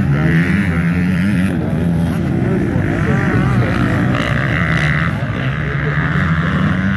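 Motocross dirt bike engines racing on the track, revving up and down as the riders accelerate and ease off.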